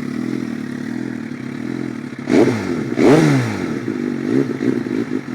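2009 Suzuki GSX-R1000 sportbike's inline-four engine, fitted with a Power Commander V and BMC air filter, idling steadily, then revved up and down in two quick throttle blips about two and three seconds in before settling back to a lumpy idle.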